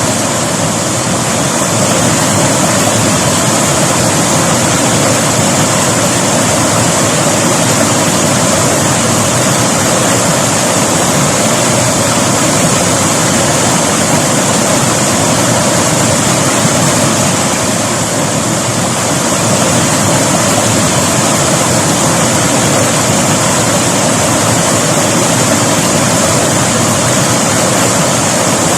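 River water rushing, a loud steady noise that eases slightly for a moment about eighteen seconds in.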